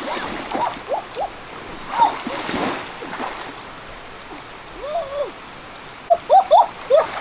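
Water splashing as a person wades and works with their hands in a shallow stream, over the steady rush of the flowing river, with a louder splash about two seconds in.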